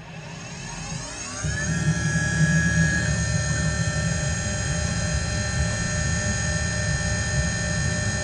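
Tormach PCNC440 CNC mill spindle spinning up over about two seconds, its whine rising in pitch, then running at a steady high whine. A low rushing noise comes in beneath it about a second and a half in.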